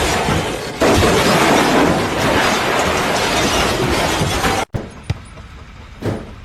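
A loud, noisy crash of something breaking apart, lasting about four seconds, then dropping off suddenly to a quieter stretch with a couple of short knocks.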